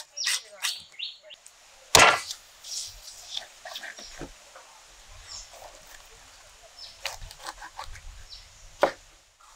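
Large kitchen knife working a seer fish on a wooden board: a few quick scraping strokes along the skin at the start, then cutting through the flesh behind the head. A loud knock about two seconds in and another sharp knock near the end, with faint bird chirps in the background.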